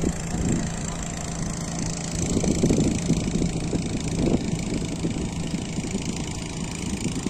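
A motor running steadily at idle, a constant low hum over background noise, with a few louder swells in the middle.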